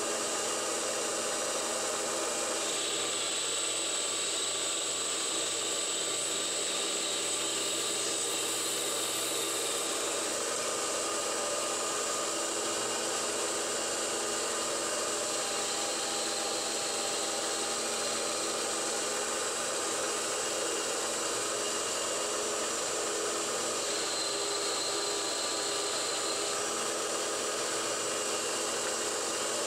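CNC-converted 9x20 benchtop metal lathe running, its spindle turning aluminium tubing while a cutoff tool takes facing cuts. A steady machine whir whose higher tones switch on and off a few times as the cuts proceed.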